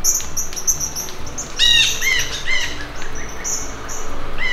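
A songbird giving repeated short, sharp alarm chirps, some thin and high, thickest a little over a second and a half in. It is a bird scolding a cat climbing its tree.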